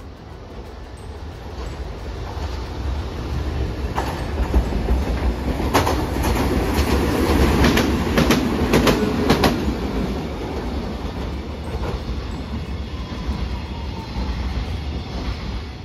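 Hiroden articulated tram passing close by on ballasted track. The rumble builds, peaks with a run of sharp clicks as the wheels cross rail joints, then fades as the tram moves off.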